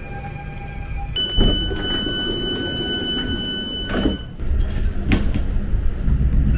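Passenger train: a steady high electronic tone sounds for about three seconds, followed by a couple of knocks and then a low rumble.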